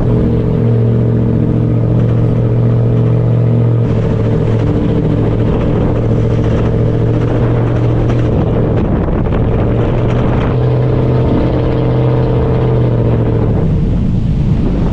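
First-generation Toyota Sequoia's 4.7-litre V8 running steadily under load as the SUV climbs a snowy grade in four-wheel drive. Its note dips briefly about four seconds in and again around nine to ten seconds, then eases off near the end.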